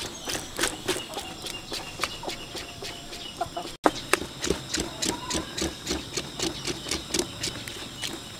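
A metal blade scraping the blackened hair off a beef oxtail's skin in quick repeated strokes, about three or four a second, over a steady high tone. A sharp click and a brief break come about halfway through.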